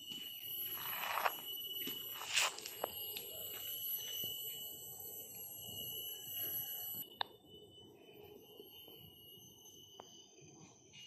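Forest insects keeping up a steady high-pitched buzz, with scattered light clicks and one sharper click about two seconds in. The highest part of the buzz cuts off about seven seconds in.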